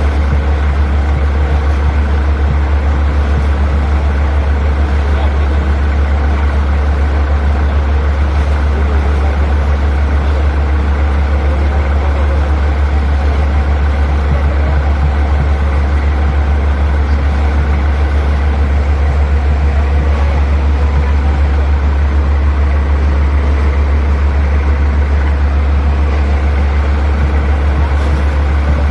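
Diesel engine of a borewell drilling rig running steadily at constant speed, with a deep, even drone.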